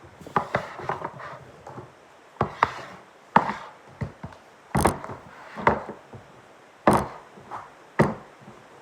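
Slime containers knocking and clattering as they are gathered up and set down: a run of irregular sharp knocks, the loudest three coming in the second half.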